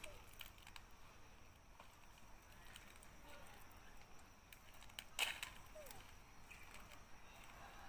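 Faint crinkling and crackling of a plastic instant-noodle packet handled by a long-tailed macaque, with one louder rustle about five seconds in.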